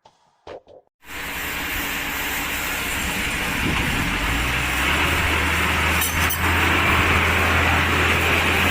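Sawmill machinery running: a loud, even mechanical noise over a low, steady engine hum, cutting in abruptly about a second in, with the hum growing stronger a few seconds later.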